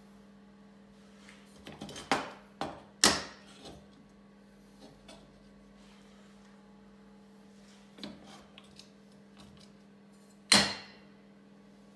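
Square steel tubing knocking against a steel workbench and a metal clamp fixture as the pieces are set in place: a handful of sharp metallic clanks with a short ring, the loudest about three seconds in and near the end.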